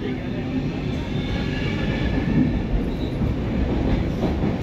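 A C14 metro car running at speed, heard from inside the carriage: a steady rumble of wheels on rails, with faint high tones over it in the first couple of seconds and a few light clicks near the end.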